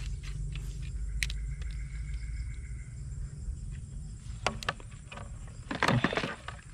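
A motor scooter's engine running with a low steady rumble that dies away about three seconds in. Then a few sharp clicks, and a short louder rattle of handling near the end.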